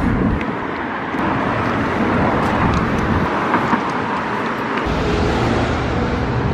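Road traffic noise: a steady rush of vehicles on the roadway. About five seconds in, a low, steady engine hum joins it.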